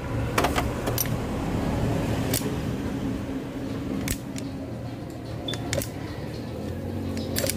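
Scattered sharp metallic clicks and taps of a screwdriver working against a Yamaha R15's rear brake pedal and footpeg bracket, about half a dozen over several seconds, over a steady low hum.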